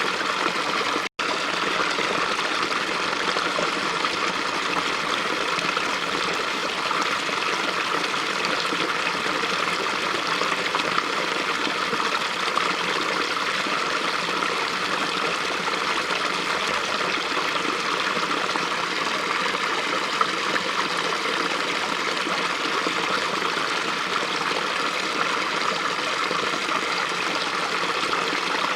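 Small brook flowing steadily, a constant even rush of water, with a split-second dropout in the audio about a second in.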